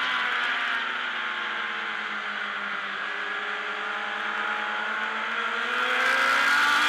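Race motorcycle engine heard from an onboard camera: the revs fall as the bike slows into a long corner, hold lower while it is leaned over, then climb again near the end as it accelerates out.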